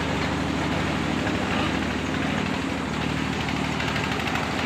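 Small stationary engine driving a clay brick extruder (pug mill), running steadily with an even, fast beat.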